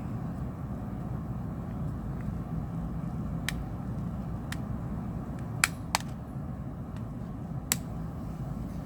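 Sharp plastic clicks and snaps as the clipped-in back cover of an LG X Power 3 phone is pried loose by hand, about five in all, the loudest a pair about six seconds in and one near the end, over a steady low background hum.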